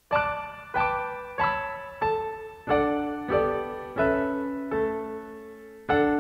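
Recorded piano music starting out of silence: a slow, even run of struck notes or chords, about one and a half a second, each ringing and fading before the next.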